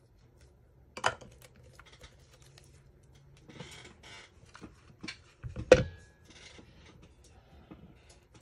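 Paper-craft handling on a wooden tabletop: scattered small clicks and taps, a short stretch of paper rustling, and one sharp knock a little before six seconds in as a handheld craft punch and paper pieces are moved about.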